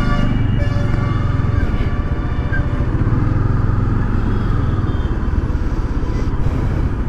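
Motorcycle engine running at low speed in slow street traffic. A vehicle horn sounds over it during the first second or so.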